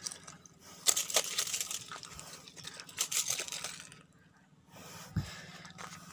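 A freshly landed mangrove snapper being handled on shell-strewn ground among leaves: two spells of rustling and clattering, each about a second long, with a short low thump near the end.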